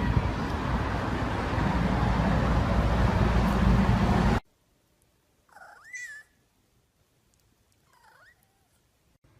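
A loud, steady rushing noise cuts off suddenly about four and a half seconds in. A cat then meows once, rising and falling in pitch, and meows again more faintly about two seconds later.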